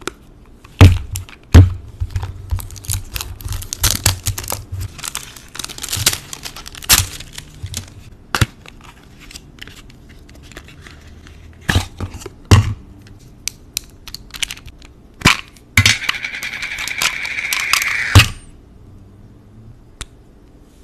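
Fingernails tapping and clicking on a small cardboard lipstick box as it is handled and opened, with crackling of the packaging. Near the end comes a steady scratchy sound lasting about two seconds that ends in a sharp click.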